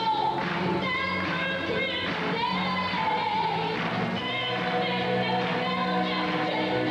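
Live choir and orchestra performing: sustained, slowly moving melody over steady bass notes.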